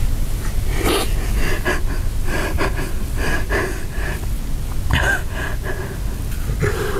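A man crying hard: a string of short, uneven sobs and catching breaths, over a steady low hum.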